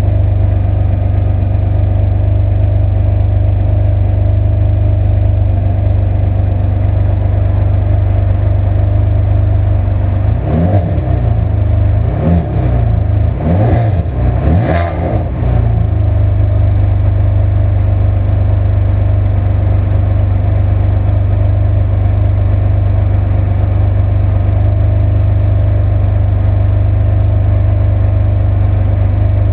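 Ferrari 599 GTB Fiorano's V12 engine idling steadily, then blipped through about four quick revs starting about ten seconds in, each rising and falling back, before it settles to idle again.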